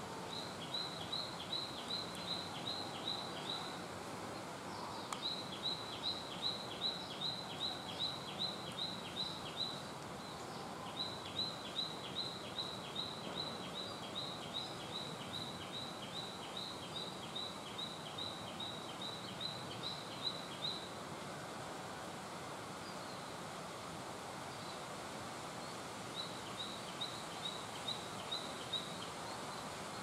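Kingfisher calling: long series of sharp, evenly repeated notes, each dropping slightly in pitch, about three or four a second, in four bouts with pauses between. A steady hiss of outdoor background noise runs underneath.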